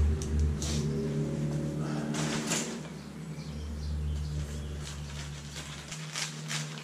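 Plastic tarp crinkling and rustling in short bursts as it is handled and worked at a corner, over steady low tones.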